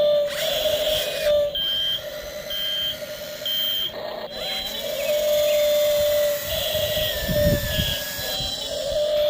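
Radio-controlled model excavator running: a steady electric whine with breaks, and a short high beep repeating about once a second for a few seconds. A low rumble comes about seven seconds in.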